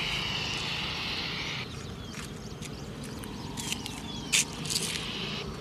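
Outdoor background noise with a few short bird chirps. A high steady hiss cuts off abruptly about a second and a half in, and several sharp clicks follow, the loudest about four seconds in.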